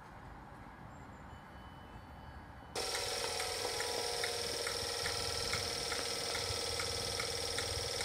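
Stationary ScotRail Class 334 electric multiple unit humming at the platform: a steady electrical whine of several tones, with a faint tick about three times a second. It starts suddenly about three seconds in, after faint background noise.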